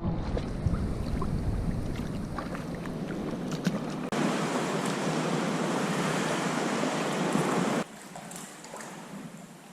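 Sea water and wind noise: waves lapping, with small splashes and drips, changing abruptly twice where the clips are cut. The middle section is a louder, steady rush of water and wind.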